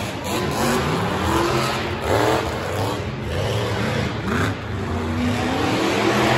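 Monster truck engines revving hard, their pitch rising and falling again and again.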